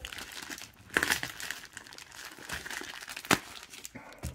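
Plastic mailer wrapping on a round parcel crinkling and rustling as it is gripped and turned by hand, with a few sharp crackles, the loudest about three seconds in.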